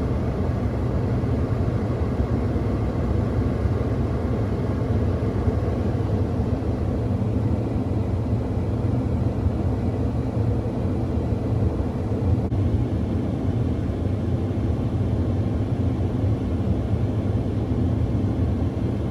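Steady rumble of a car being driven, heard from inside the cabin: engine and road noise.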